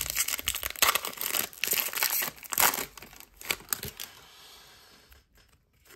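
Trading-card pack wrapper crinkling and tearing as the pack is opened. The sound is busy for about three seconds, then thins to a few soft rustles.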